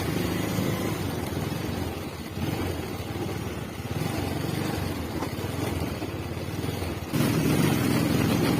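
Motorcycle engine running with a steady low hum, getting louder and higher about seven seconds in as the throttle opens.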